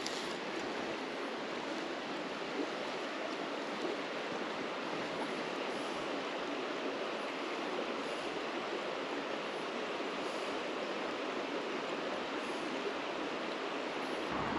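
River water rushing, a steady, even wash.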